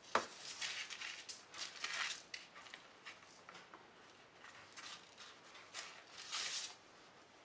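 Paper rustling and crinkling under hands as a sheet of puff pastry is folded on it, in several short bursts, most in the first two seconds and again near the end.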